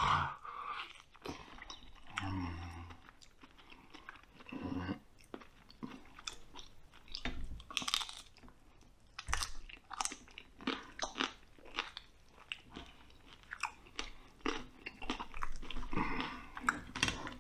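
A person biting, tearing and chewing meat from a roasted lamb head, with irregular sharp crackles throughout.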